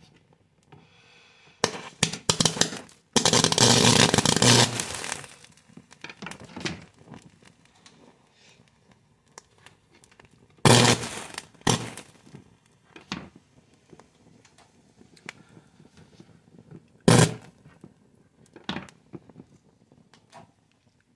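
A burning, sparking circuit board crackling and popping: irregular sharp cracks, with a longer sputtering burst of about two seconds a few seconds in and faint crackle between the pops.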